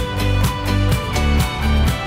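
Background music with a steady beat and strong bass notes.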